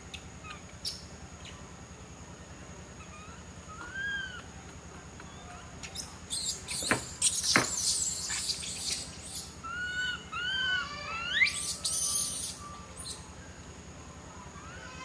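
Long-tailed macaques calling: short arched coos rising and falling in pitch, breaking into two bouts of harsh, noisy squeals about halfway through and again near the end.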